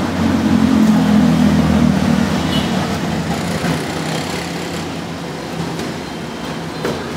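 A motor vehicle engine running close by with a low hum that swells over the first couple of seconds and then eases off, over street traffic noise. There is one sharp knock near the end.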